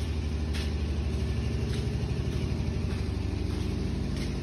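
Massey Ferguson 240 tractor's diesel engine idling steadily with an even, rapid throb.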